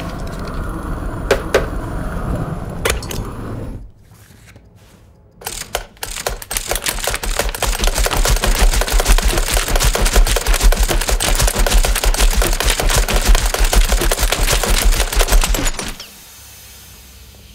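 Heavy-duty desk stapler punching through paper over and over, a rapid unbroken run of sharp stapling clicks, several a second, that goes on for about ten seconds and then stops abruptly. Before it, a steady low rumble with a couple of clicks cuts off about four seconds in.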